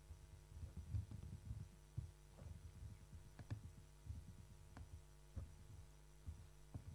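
Faint, irregular tapping and clicking of a laptop's keys and touchpad, with soft low thumps, over a steady low hum.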